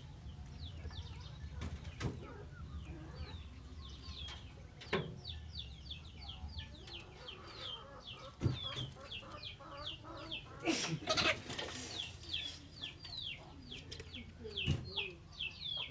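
Chicks peeping: a steady run of short, high, falling peeps, several a second, with a few sharp knocks in between.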